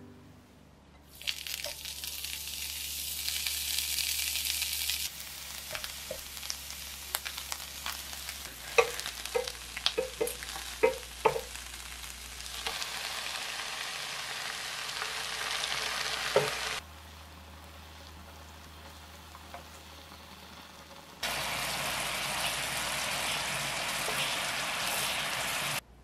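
Oil sizzling in a frying pan as bundles of enoki mushrooms in green onion pieces cook, then as they braise in a red pepper seasoning sauce. A quick run of sharp clicks comes near the middle, and the sizzle breaks off suddenly and starts again a few times.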